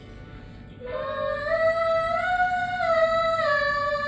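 A woman's voice singing one long, held vocal warm-up note that comes in about a second in, bends up in pitch and then slides back down, over quiet backing music.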